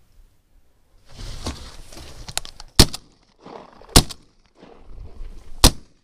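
Three shotgun blasts at Canada geese flying overhead, the first about 1.2 s before the second and the second about 1.7 s before the third. They follow a second and a half of rustling and movement noise.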